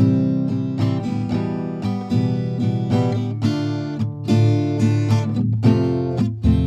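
Background music: acoustic guitar picked and strummed, a note or chord every fraction of a second.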